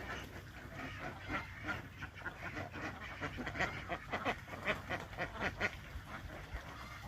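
Ducks quacking in a quick run of short, repeated calls, loudest a little past halfway.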